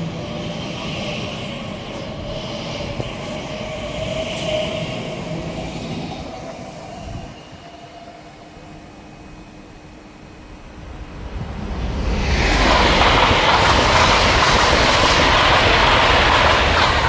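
Elizabeth line Class 345 electric train pulling away, its traction motors giving a steady whine that rises slightly and then fades. About twelve seconds in, a Great Western Railway Class 800 passes through at speed: a loud rush of wheels and air that builds up and holds.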